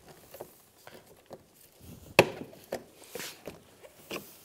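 Plastic retaining clips and the plastic lower grille of a 2014–2019 Toyota Corolla bumper cover clicking and snapping as the clips are worked loose with needle-nose pliers and the grille is pushed out. There are several separate clicks, with one sharp snap about two seconds in the loudest.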